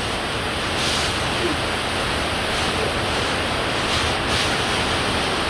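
Fukuroda Falls, a large waterfall, pouring: a steady, unbroken rush of falling water.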